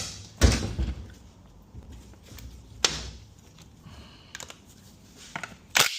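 Metal clunks and clicks from hands and tools working on a transmission on the bench: one heavy knock about half a second in, a sharp click near the middle and a few lighter clicks near the end.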